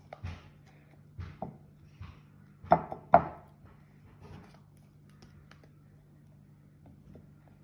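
A handful of short knocks and clatters, the two loudest close together about three seconds in, with fainter taps around them.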